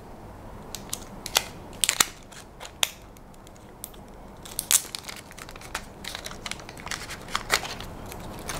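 Small sharp clicks and light crinkling, irregular and scattered, from hands working a smartwatch's band and peeling its protective plastic.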